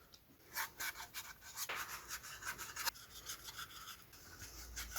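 Wax being rubbed onto a wooden bandsaw basket, with quick, uneven rubbing strokes.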